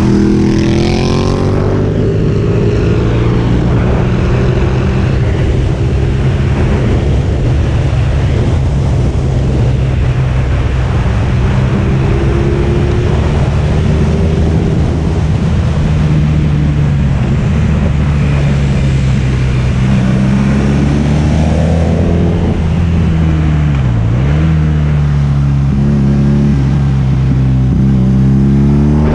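Motorcycle engine running under way at road speed with wind rush on the microphone. The engine note climbs just after the start, dips briefly and picks up again about three-quarters through, and rises near the end.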